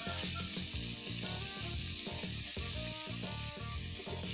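Shredded vegetables and sauce sizzling steadily in a hot oiled wok as they are stirred and mixed.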